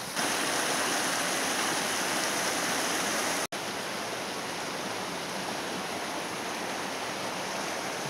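Steady rush of a stream's flowing water, a little louder for the first three and a half seconds and then slightly softer.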